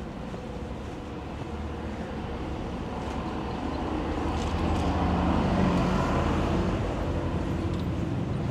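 A motor vehicle drives past on the street over the general city traffic noise. Its engine hum and tyre noise grow louder to a peak about five or six seconds in, then ease off slightly.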